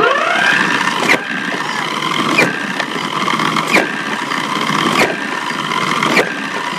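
A FIRST Robotics robot's frisbee shooter. Its wheel motors finish spinning up with a rising whine and then hold a steady whine. It fires five frisbees, about one every second and a quarter, and each shot is a sharp clack with a short dip in the whine's pitch.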